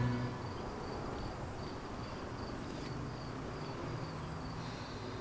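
Insects chirping in a steady high-pitched pulsing rhythm, about three pulses a second, over faint outdoor background noise.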